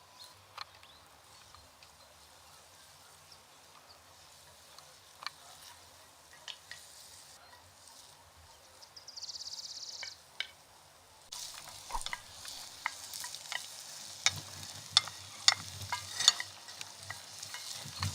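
Food frying in a pan with a sizzling hiss that sets in about eleven seconds in, under frequent sharp clicks of a utensil stirring against the pan. Before that it is quieter, with scattered clicks and one short burst of hiss.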